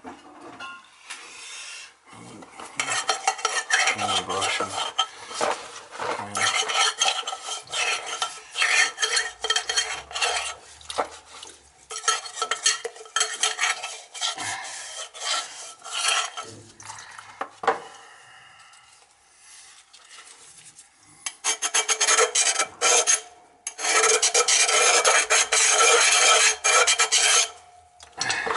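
Stiff brush scrubbing the inside of a metal oil-tank filter bowl, a fast scratchy scraping of many quick strokes, in two long bouts with a short pause between.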